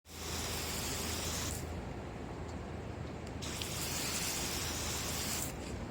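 Water hissing on a wet car windscreen in two spells of about a second and a half to two seconds each, over a steady low hum, with no wiper chatter.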